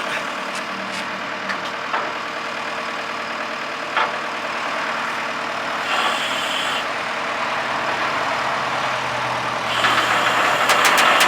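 The engine of a loader running steadily while it lifts a pickup bed on its forks, with a few sharp knocks along the way. It gets louder, with a hiss and several clicks, near the end.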